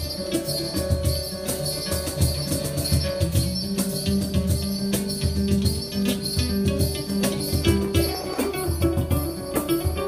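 Live acoustic band playing an instrumental passage: strummed acoustic guitars over steady hand percussion and cymbal, keeping an even beat with no singing.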